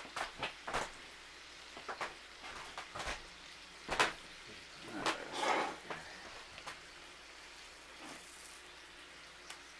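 Scattered clinks and knocks of a metal spatula and cast iron pan as pancakes are handled and turned, the loudest knock about four seconds in, followed by a short scraping stretch about a second later.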